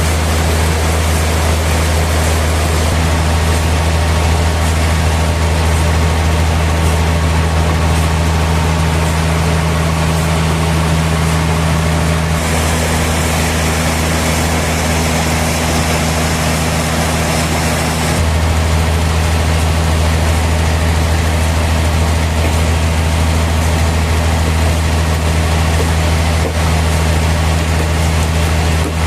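Sawmill machinery running with a steady low hum and broad mechanical noise. A higher hiss joins about twelve seconds in and stops about six seconds later.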